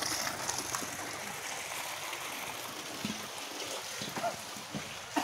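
Water flowing steadily from the spout of a hand pump that is not being worked, splashing onto the ground. The long-dry pump is overflowing by itself because heavy rain has raised the groundwater.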